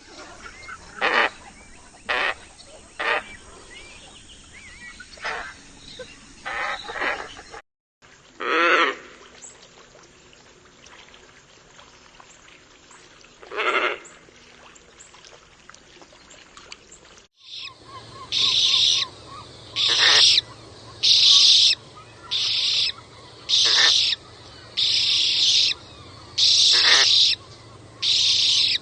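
Scarlet ibis calls: scattered short harsh calls, then, after two brief breaks, a run of regular calls about one a second.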